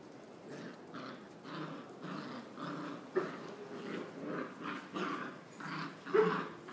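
Jagdterrier puppies growling in play, a run of short growls about two a second, with the loudest one near the end.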